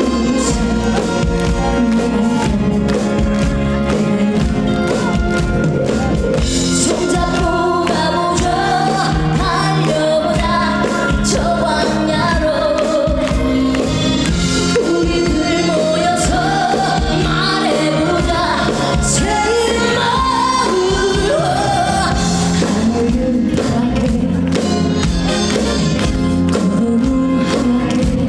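A woman singing a Korean trot song live over loud, full musical accompaniment.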